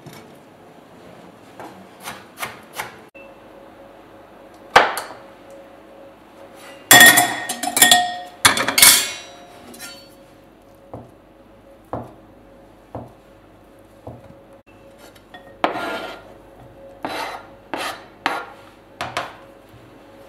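Chef's knife cutting a peeled boiled egg on a plastic cutting board: scattered sharp knocks of the blade on the board, a louder clatter of knocks about seven to nine seconds in, then single cuts about one a second.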